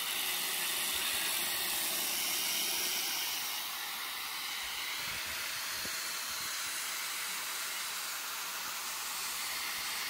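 Electric angle grinder sharpening the steel knives of a forage chopper, a steady hissing grind. The knives are being ground because they have gone dull.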